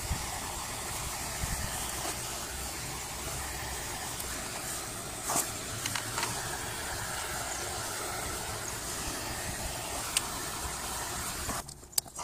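Butane torch burning with a steady hiss while heating the heat-shrink tube on a battery cable's copper lug, with a couple of light clicks; the hiss cuts off near the end as the torch is shut off, followed by a few small knocks.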